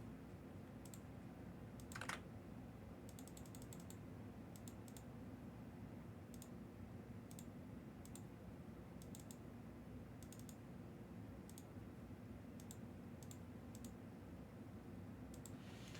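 Faint, scattered clicks of typing on a computer keyboard, some in quick runs, over a low steady room hum.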